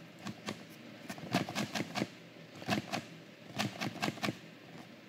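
Sharp plastic clicks and light knocks from a hand handling a John Deere EDL v2 diagnostic adapter and its plugged-in connector. They come irregularly, some in quick runs of three or four.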